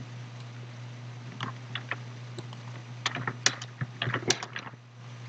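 Computer keyboard typing: a few scattered keystrokes, then a quick run of keystrokes from about three seconds in, stopping just before the end, over a steady low hum.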